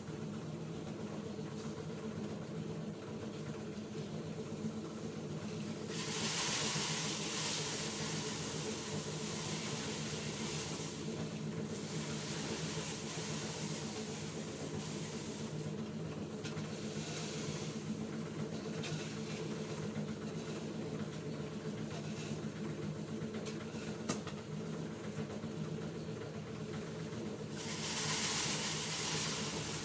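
Dry rice paddy being scraped and pushed across a dirt yard, a hissing rustle that comes in stretches: about six seconds in for several seconds, again briefly later on, and near the end. Under it a steady low motor hum runs throughout.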